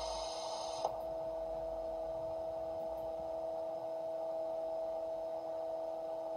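Steady electrical hum of a few tones from a digitised Gauge 1 model of the SNCF 2D2 electric locomotive, freshly serviced and standing still. A hiss stops with a faint click about a second in, leaving the hum.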